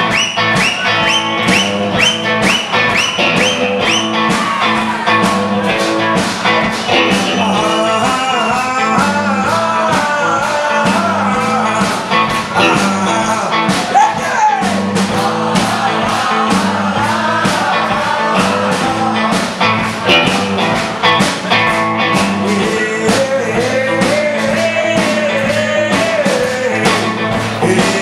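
Live rockabilly trio playing: slapped upright bass, electric guitar and drum kit with a steady, driving beat.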